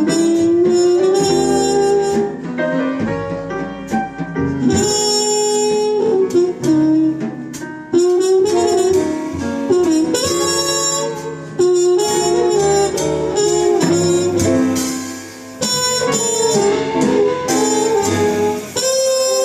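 Live small-group jazz: a horn plays the melody in held and moving notes over bass and drums, with cymbals ringing throughout.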